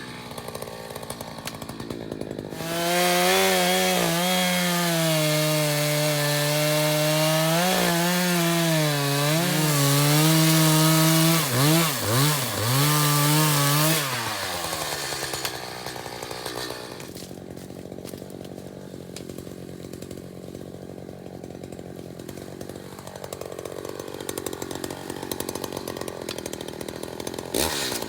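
Gas chainsaw idling, then revving and cutting through a felled sweet gum trunk for about ten seconds, its engine pitch wavering and dipping several times under load, before dropping back to a steady idle for the rest.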